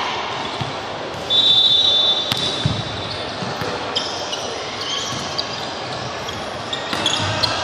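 A referee's whistle blows once, for about a second, a little over a second in. Then volleyball hits and a few short shoe squeaks on the wooden court follow over the steady noise of voices in the sports hall.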